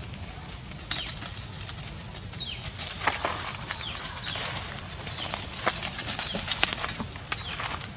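Dry leaf litter crackling and rustling under a monkey's feet as it walks, over a steady high hiss. A bird's short, high, falling chirp repeats every second or two.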